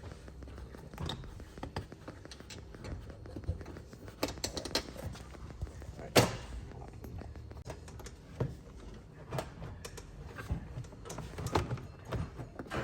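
Plastic fender liner being handled and shifted into place and push clips pressed into its holes: scattered clicks and knocks, the loudest about six seconds in.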